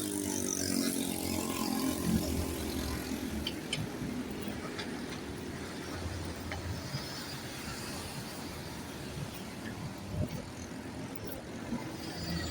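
Street traffic: a steady low rumble and hiss of passing vehicles, with a pitched engine note falling away just as it begins.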